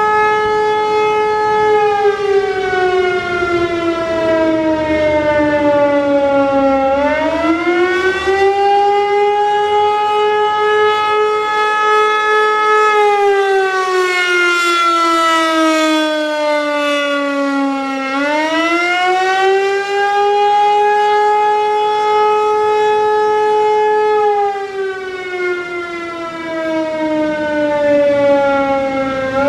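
ASC T-135 electromechanical outdoor warning siren sounding a slow wavering signal. Its pitch sinks for several seconds, swings back up quickly and holds steady before sinking again, a cycle of about every eleven seconds.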